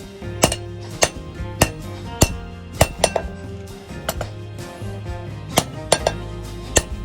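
Hammer blows on hot iron over an anvil, about two strikes a second, each with a clinking metallic ring, as the iron is forged into a chopper blade.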